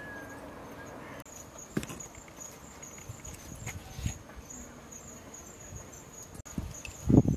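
Insects chirping steadily in a high, pulsing trill, with occasional soft taps from food being handled and a louder knock near the end.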